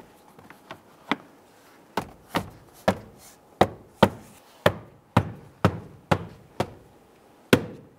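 A plastic door-sill trim panel being knocked into place by hand, about a dozen sharp knocks, roughly two a second, as its clips snap into the sill.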